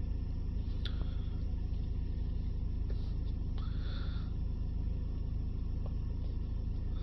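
Steady low rumble inside a car cabin, with a few faint light taps and a brief rustle about four seconds in.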